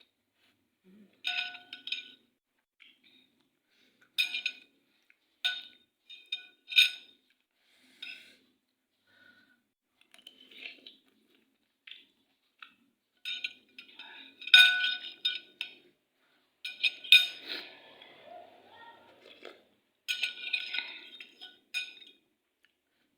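Metal cutlery clinking against a bowl or plate while eating, in scattered strikes that ring briefly at the same pitches, several bunched together, with a softer scraping stretch near the end.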